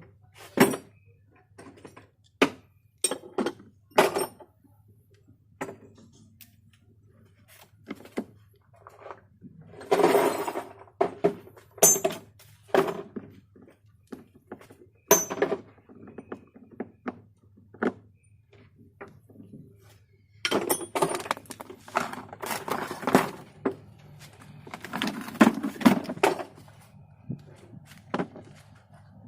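Irregular knocks, clicks and clinks of hard plastic and metal parts and tools being handled while a Kärcher K7 pressure washer is taken apart and repaired. Some are single sharp taps, others short clattering runs, over a steady low hum.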